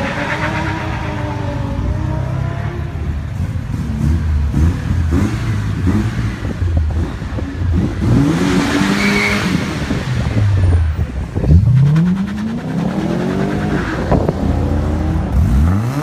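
Exhaust of a 2013 Lexus IS-F's 5.0-litre V8 accelerating away. The revs climb and fall back several times, with the strongest pulls in the second half.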